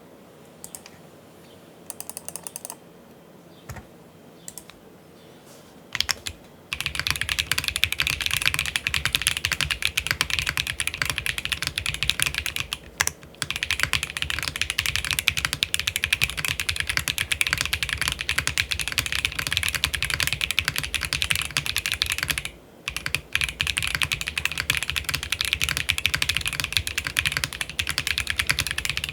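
Matrix Labs 6XV3.0 Corsa custom mechanical keyboard with WS Black heavy tactile switches in an aluminium plate and GMK keycaps, being typed on. A few scattered keystrokes at first, then fast continuous typing from about seven seconds in, broken by two short pauses.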